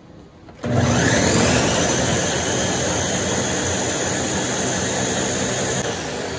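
Countertop blender switched on about half a second in, its motor spinning up quickly and then running loud and steady as it purées sweet corn kernels with eggs, flour and milk into cachapa batter.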